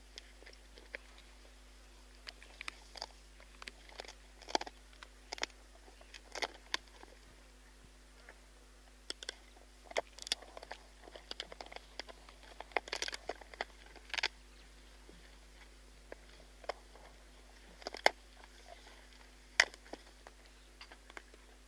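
Spotted hyaena crunching and gnawing buffalo bones close up: irregular sharp cracks and crunches, some in quick runs, with the loudest cracks about two-thirds of the way in.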